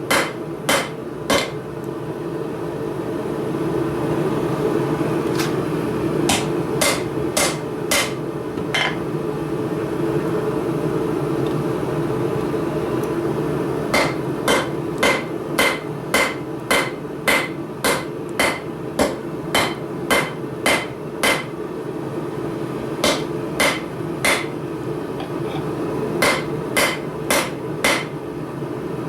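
Blacksmith's hammer striking hot steel on an anvil while forging tongs, each blow with a short metallic ring. The blows come in runs of about two a second, broken by pauses of a few seconds. A steady low background noise runs underneath.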